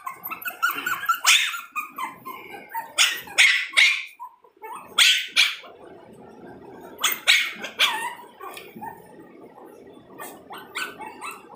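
Shih Tzu puppies yapping from inside a wire crate: short, high-pitched barks in clusters every couple of seconds, with some whining between them. The puppies are asking to be let out at feeding time.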